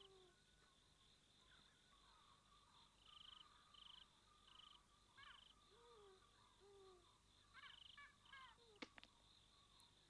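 Faint night-time jungle ambience: short repeated insect chirps and small bird-like calls that glide up and down, over a steady high tone, with a single small click near the end.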